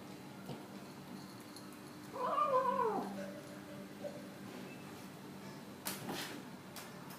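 A domestic cat gives one drawn-out, grumbling meow that rises and then falls, about two seconds in: the grumble a cat makes while eating. A couple of short scraping noises follow near the end.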